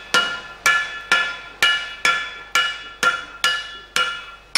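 Blacksmith's hammer striking a red-hot metal gun barrel on an anvil, about two even blows a second, each blow leaving a bright metallic ring that fades before the next. This is hand-forging of the barrel of a 15th-century-style handgun.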